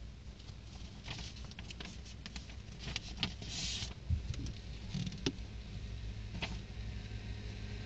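Quiet car interior: a steady low rumble with scattered faint clicks and rustles of movement, the acoustic guitar silent and no singing.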